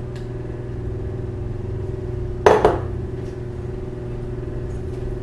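One sharp knock of kitchenware against a skillet about halfway through, ringing briefly, over a steady low hum.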